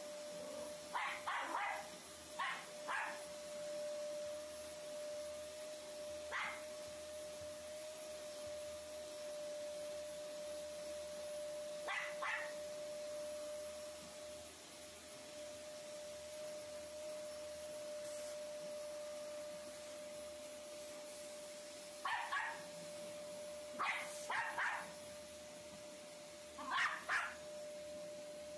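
Canister vacuum cleaner running with a steady whine while bichon Maltese dogs bark at it in short bursts: a quick run of barks at the start, single barks now and then, and another run of barks near the end.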